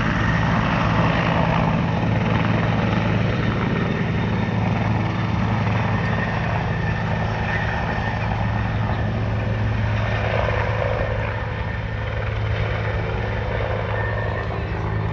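Helicopter with a water-pickup hose flying away from a hover over the lake after filling up. Its rotor and turbine noise is steady, then eases off a little over the last few seconds as it moves off.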